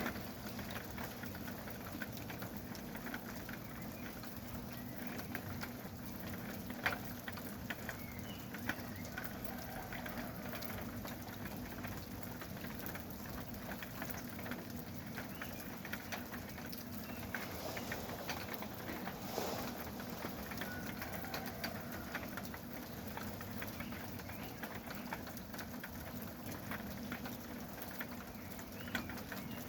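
Steady rain falling in a pine forest, a dense patter of drops. Faint bird calls come now and then.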